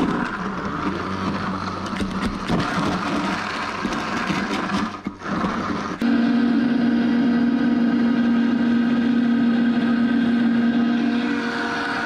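Countertop blender running on fruit and juice: at first a rough, uneven grinding with many small knocks as the chunks are chopped, then from about six seconds a louder, steady whir with a clear pitch as the mix turns to a smooth purée.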